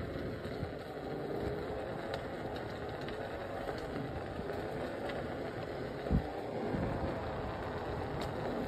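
Steady outdoor rumble with a faint wavering hum, like distant traffic, and one low thump about six seconds in.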